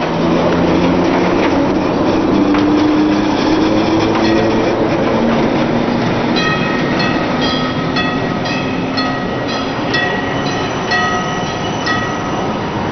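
Tram running along its track with a steady low hum that shifts in pitch. About halfway through, a quick run of short ringing tones starts, repeating a few times a second.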